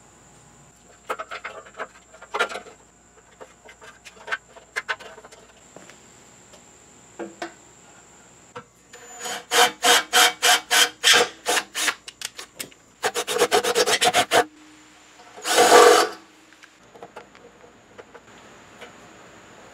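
Ryobi cordless drill driving screws into a car's steel bumper reinforcement: about halfway in, a long run of loud, evenly spaced clicking at about four a second, then a faster run and a short continuous burst. Scattered clicks and knocks of parts being handled come before and after.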